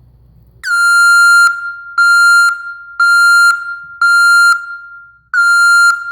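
ECCO dual-function vehicle backup alarm, run on its single-tone mode: a loud, steady single-pitch beep repeated about once a second, five beeps, each starting with a slight downward slide.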